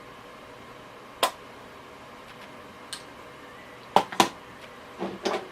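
Sharp clicks of small objects being handled: one about a second in, a faint one near three seconds, then two in quick succession about four seconds in, with a short hum-like vocal sound near the end.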